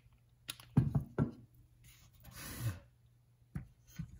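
Handling noise on a workbench: a plastic instrument-cluster housing and metal parts being picked up and set down. There are a few sharp knocks and clicks about a second in, a brief rustle in the middle, and two light clicks near the end.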